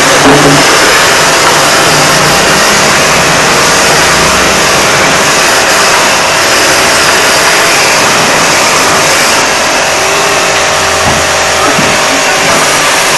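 High-pressure washer running steadily, its water jet hissing as it sprays the parts of a split air conditioner, starting with the cross-flow blower wheel.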